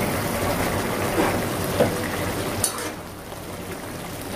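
Thick onion-tomato gravy with dried anchovies simmering and bubbling in a nonstick pan, with a metal spatula stirring it and a few light clicks against the pan.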